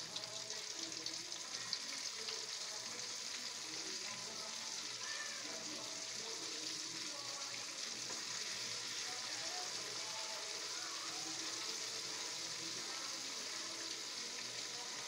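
Flour-coated chicken pieces deep-frying in hot oil in a wok: a steady sizzle of bubbling oil, with one light knock about two seconds in.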